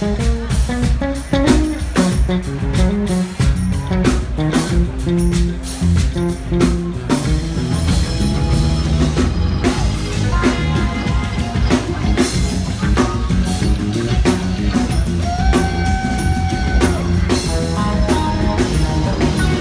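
Live funk band playing: a busy electric bass line over a drum kit, with electric guitar. A held higher note sounds about three-quarters of the way through.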